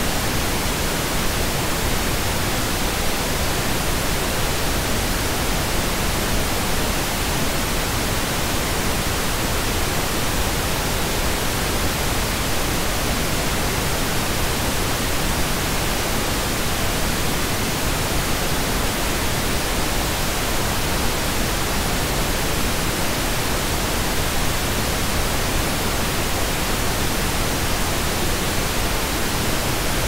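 Old analogue television static: a steady, even hiss of white noise, the sound of a set tuned to no signal.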